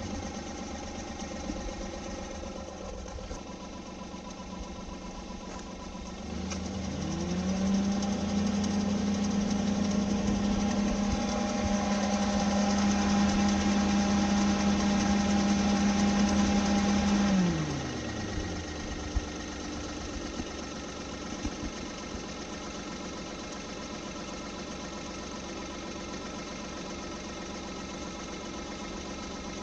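A 2004 Daihatsu Mira Avy's 660 cc three-cylinder engine running at idle. About six seconds in it is revved up and held at higher revs for about ten seconds, then drops back to idle. It is running with the A/C compressor's 'shari-shari' rustling noise, which the owner suspects comes from a faulty rebuilt compressor.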